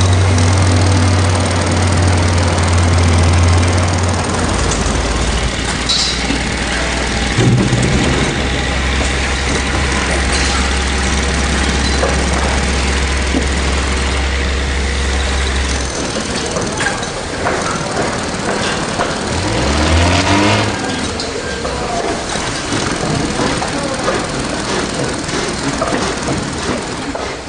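Construction site ambience with heavy machinery engines running. A steady low drone drops in pitch about four seconds in and stops around sixteen seconds in, with scattered knocks and an engine revving up and down around twenty seconds in.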